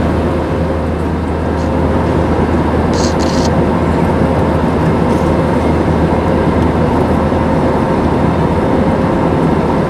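Steady cabin noise of an Airbus A320 in flight: the even rush of engines and airflow with a low hum underneath. There are a couple of brief light clicks about three seconds in.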